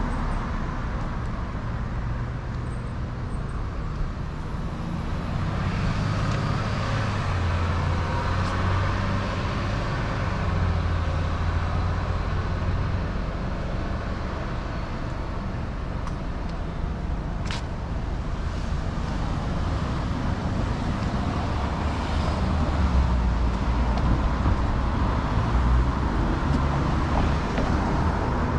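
City street traffic: car and bus engines and tyres rumbling steadily, swelling twice as vehicles pass close by. There is one sharp click partway through.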